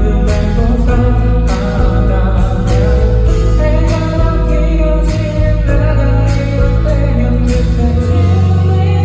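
A live band plays a song with a singer over bass, guitar and drums, with cymbal and drum hits about every second. Near the end the drums drop out and a held bass note rings on.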